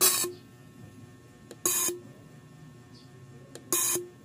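Fuel injector from a Toyota 4A-FE engine spraying on an injector test bench: three short hissing sprays about two seconds apart, each ending in a brief buzz. This is the spray test that shows whether the injector sprays and holds.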